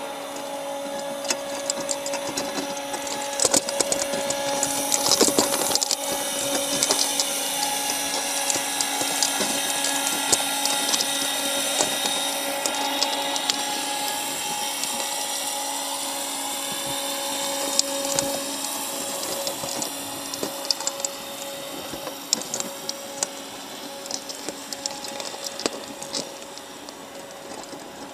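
Underwater mechanical whine, like a motor heard through water: steady low tones with higher tones sweeping slowly up and down, over many scattered small clicks and taps.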